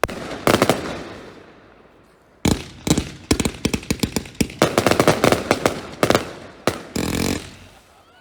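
Wakuda Compound firework battery, a 132-shot cake, firing. A few sharp bangs open, then after a short pause comes a rapid string of bangs and crackling bursts, several a second, each trailing off in an echo, before it dies away near the end.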